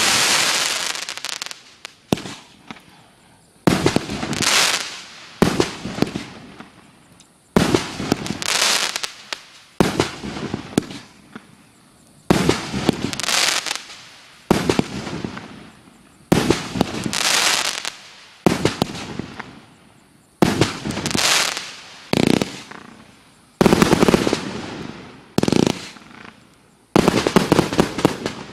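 F4-category professional display fireworks: aerial shells bursting one after another, a sharp bang about every two seconds, each fading out in a hiss as the stars burn out.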